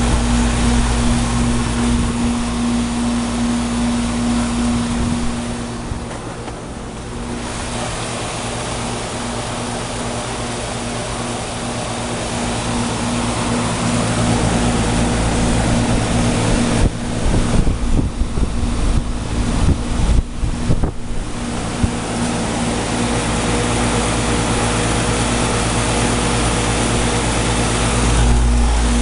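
2003 Bryant heat pump outdoor unit running in heat mode: a steady compressor hum under the outdoor fan's rush of air. Its coil is iced over and it has not gone into defrost. A run of short crackles comes a little past the middle.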